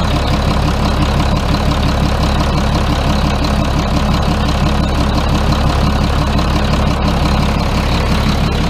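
Yuchai diesel engine of a front loader running steadily with an even low note, its injection pump freshly refitted after an oil leak at the pump's drive coupling.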